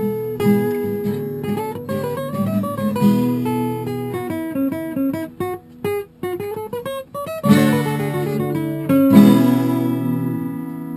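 Acoustic guitar playing, with single picked notes and then fuller strummed chords in the second half.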